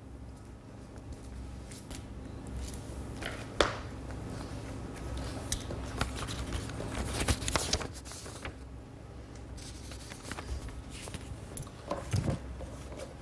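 Quiet handling noises: soft rustling with scattered small clicks and taps, a few sharper ones about three and a half, seven and twelve seconds in, over a low steady hum.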